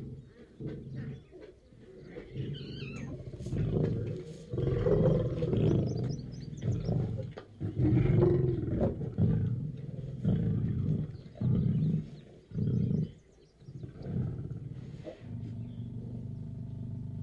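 Lion roaring: a bout of deep, repeated roars that is loudest about a third of the way in, then breaks into shorter, separate calls.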